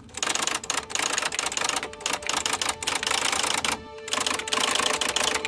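Typewriter keys clacking in quick, uneven runs, keeping time with text being typed out, with a short break about three-quarters of the way through.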